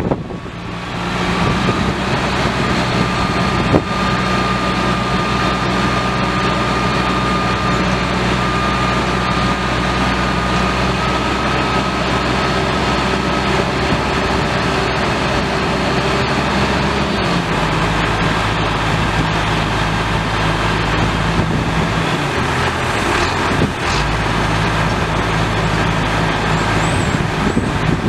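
International DT466 7.6 L inline-six turbo diesel in a 1996 International 4900 dump truck, running steadily with a thin high whine over the engine note. The engine note shifts to a new pitch about two-thirds of the way through, then changes again shortly before the end.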